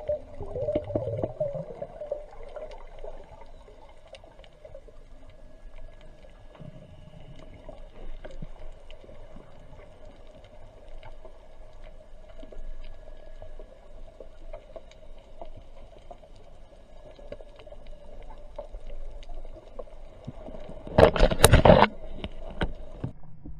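Underwater ambience heard underwater: a low steady hum with scattered faint clicks. About 21 seconds in there is a loud, sudden burst of noise lasting about a second.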